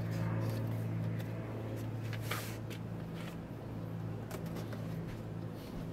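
Cardboard shipping box being handled, with brief scrapes and rustles, the loudest about two seconds in, over a steady low hum.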